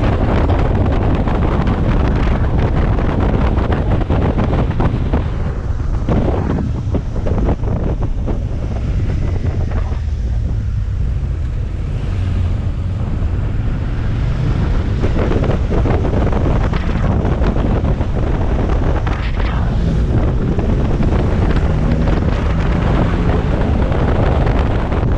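Heavy wind buffeting on a helmet-mounted camera microphone during a motorcycle ride, with the motorcycle's engine running faintly underneath.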